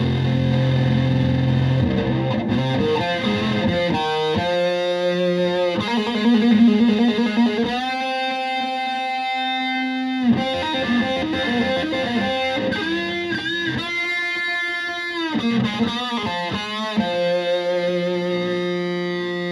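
Electric guitar with single-coil pickups tuned to Drop C, played through a 1974 V2 Ram's Head Big Muff fuzz pedal into a tube combo amp at the edge of breakup. A low fuzzed chord rings, then single-note lead lines follow with long sustained and bent notes, and a low chord is held again near the end.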